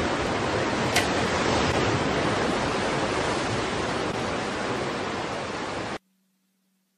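Steady rushing of surf on a rocky shore, with one sharp click about a second in. It stops abruptly about six seconds in.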